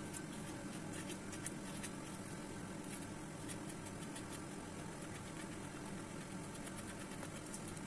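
Soft, wet scraping and faint clicks of a metal spoon scooping aloe vera gel from a cut leaf, over a steady low background hum.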